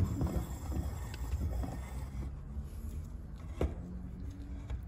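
Plastic car side-mirror housing being handled and set into a bench vise: a few light knocks and clicks, one sharper about three and a half seconds in, over a low steady hum.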